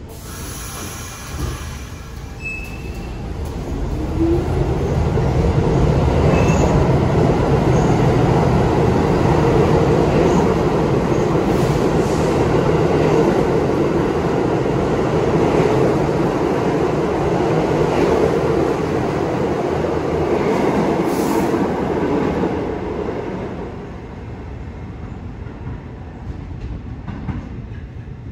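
New York City subway train running through an underground station: its rumble builds over a few seconds, stays loud for about fifteen seconds, then dies down, with a few short wheel squeals near the start.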